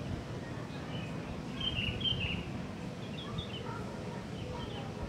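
Outdoor neighbourhood ambience: small birds chirping in short high notes several times, over a steady low rumble of background noise.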